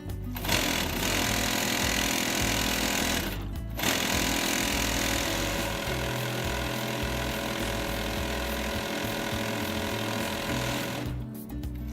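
Heavy-duty walking-foot industrial sewing machine stitching at speed in two runs, stopping briefly about three and a half seconds in and again near the end, over background music.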